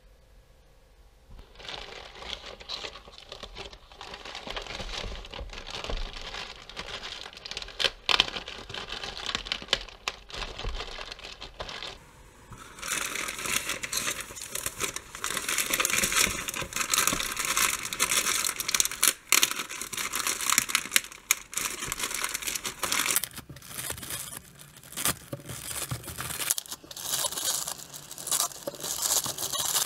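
Crinkling, rustling and tearing of a white shipping bag as it is crumpled in the hands and then slit open with a flat metal blade, with many small sharp crackles. It starts after a second or two of near quiet and grows louder about halfway through.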